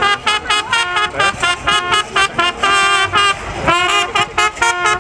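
Music starting abruptly: a fast lead melody played in short, clipped notes, with a brief pause near the end before a new phrase begins.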